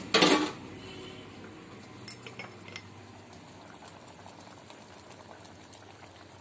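Kitchen utensils clattering briefly at the start, then a few light clinks of a spoon against the dishes about two seconds in, over a faint steady hiss.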